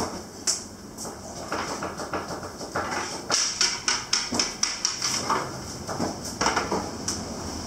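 Irregular knocks and clicks of long-handled pizza-oven tools being handled, with a quick run of sharp clicks about three and a half to four and a half seconds in.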